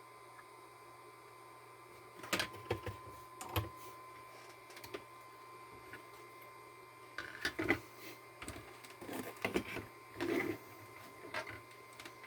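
Irregular clicks, knocks and rustles of hands handling objects, in clusters through most of the clip, over a steady faint electrical hum.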